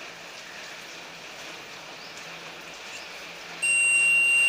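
Digital multimeter's piezo continuity buzzer starts a loud, steady, high-pitched beep about three and a half seconds in, set off as a screwdriver tip touches points on the meter's circuit board. The tone then holds without a break.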